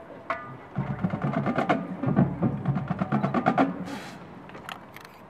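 Marching band percussion warming up: a single pitched mallet note, then a fast run of drum strokes lasting about three seconds. A short hissing burst follows near the end.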